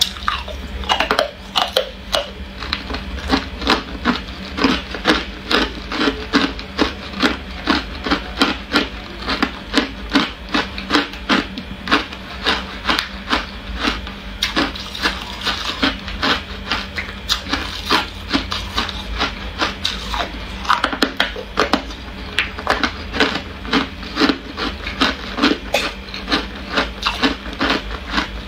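Hard ice cubes being crunched between the teeth, a steady rhythm of sharp crunches about two a second, over a low steady hum.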